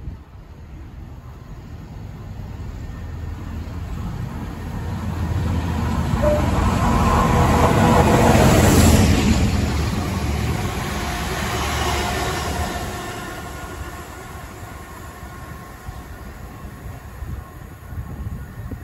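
Multiple-unit passenger train passing at speed without stopping: the rush of wheels on rails grows as it approaches, is loudest about nine seconds in as the cars go by, then fades away.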